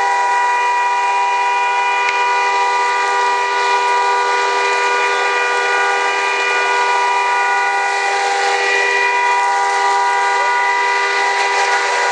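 Fire engine pumps running steadily: an unchanging whine of several held tones over a rushing hiss.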